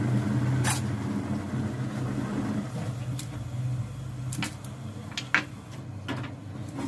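Steady low hum, with a few sharp clicks and clinks of kitchen utensils being handled, the loudest a little past five seconds in.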